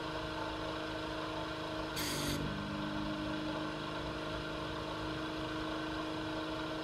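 Vacuum pump of a home-made desoldering rig running with a steady hum; about two seconds in, a brief hiss of air rushing into the nozzle as the valve is opened to suck up molten solder, and the pump's note shifts just after it.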